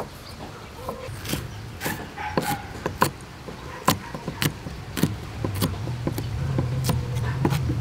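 Large kitchen knife chopping red chili peppers on a wooden cutting board: sharp, irregular chops about one or two a second.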